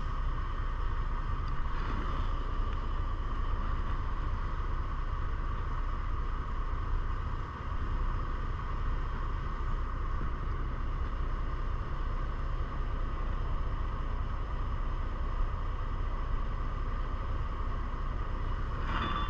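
Truck cab noise: a steady low rumble with a constant mid-pitched hum.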